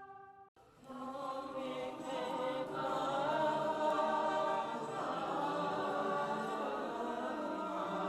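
A held, evenly pitched tone cuts off about half a second in. Just after, a choir-like wash of chanting voices comes in, many pitches held and wavering together, swelling a little after a couple of seconds.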